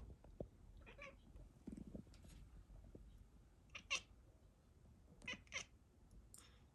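Domestic cat making a series of faint, short chirping calls, about five in all, the loudest about four seconds in: the chatter a cat makes while watching birds.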